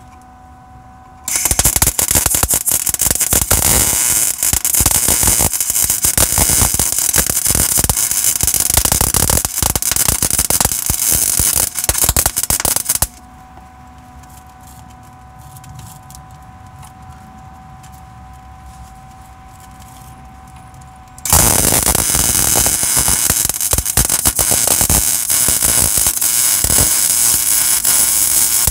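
MIG welding arc crackling and sizzling against a rusted steel truck frame in two long runs: one from about a second in to nearly halfway, then, after a pause of about eight seconds holding only a steady hum, a second run from about three quarters of the way in to the end.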